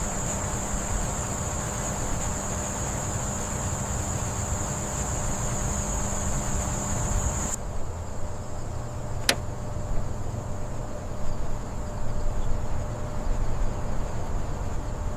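A car engine running with a steady, wavering low rumble, under a constant high-pitched insect-like trill that drops away about halfway through. One sharp click comes about nine seconds in.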